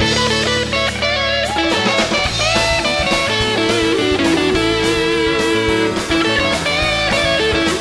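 Rock band playing an instrumental, with an electric guitar carrying the melody over a steady drum beat.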